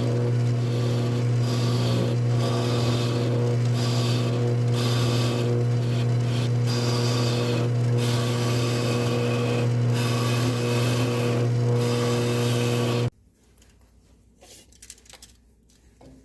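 Wood lathe running with a steady motor hum while a gouge cuts into a spinning poplar bowl blank, giving a rough scraping hiss that swells and eases about once a second. The sound stops abruptly about 13 seconds in, leaving only faint clicks.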